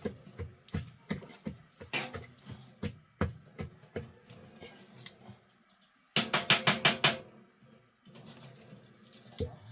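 Irregular knocks and taps, then a quick run of about eight loud strikes a little after six seconds in.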